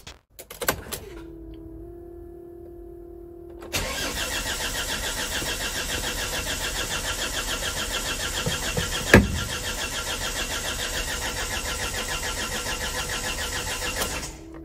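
Hyundai H350 2.5 CRDi diesel engine cranking on the starter for about ten seconds with an even rhythmic pulse, but not firing: a no-start that the owner puts down to the AdBlue fault, the allowed distance having run out. A steady electronic tone sounds for a few seconds before the cranking begins, and a sharp click comes midway through.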